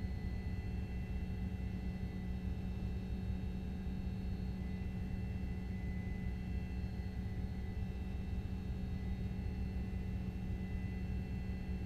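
Steady low engine rumble with a constant hum, unchanging throughout, from the chase vehicle.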